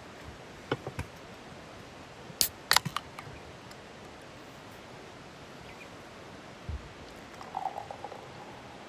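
A few sharp clicks and knocks over a steady hiss, the loudest a quick cluster about two and a half to three seconds in, then a single dull thump near the end.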